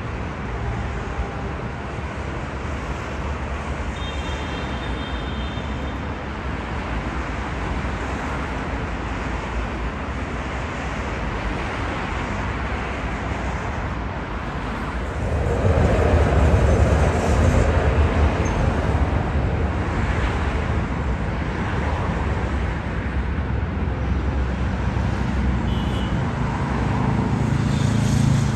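Steady city street traffic noise. About halfway through, a heavy vehicle passes close by, louder and deeper, before the traffic settles to a steady level again.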